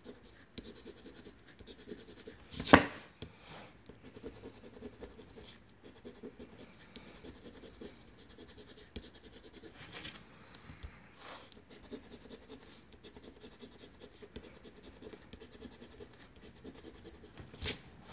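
Scratch-off lottery ticket being scratched, its coating scraped away in quick, continuous strokes, with one sharp tap a little under three seconds in.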